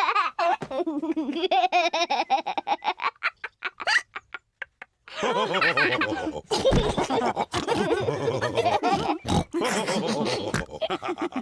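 Cartoon pig characters laughing and oinking, with a run of quick short sounds and a brief pause before the laughter picks up again.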